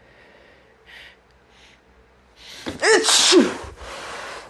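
A person sneezing in an allergy sneezing fit: a few short sniffing breaths, a rising gasping breath in, then one loud sneeze about three seconds in, its voiced "achoo" falling in pitch.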